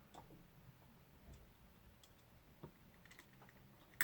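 Faint scattered clicks and ticks of small parts and tools being handled during a drone gimbal ribbon-cable repair, with a sharper click near the end.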